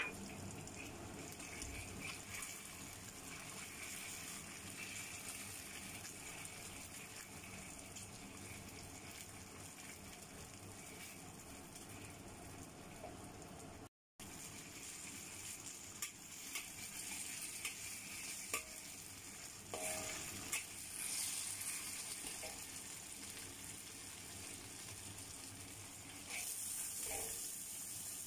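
Minced garlic sizzling gently in oil in a wok, with a metal spatula stirring and clicking against the pan now and then. The sizzle cuts out for a moment about halfway and grows louder near the end.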